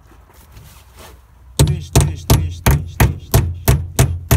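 A hammer knocking on a car battery's terminal clamp, a quick even series of sharp blows about three a second, starting about one and a half seconds in.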